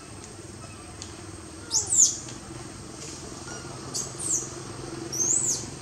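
Baby long-tailed macaque screeching: three short, high-pitched cries, each rising and then falling, about a second and a half apart. The first is the loudest. These are a hungry infant's distress calls.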